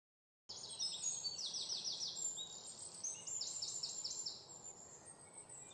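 Birds chirping: several runs of quick, high, falling chirps that stop about four and a half seconds in.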